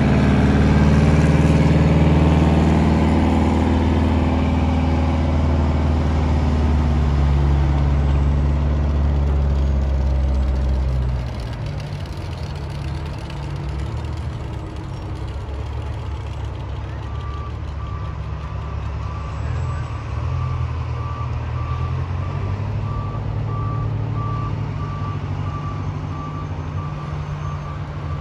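Fire-truck engines running close by, a deep steady drone that drops off about eleven seconds in. From about seventeen seconds a vehicle's reversing alarm beeps steadily.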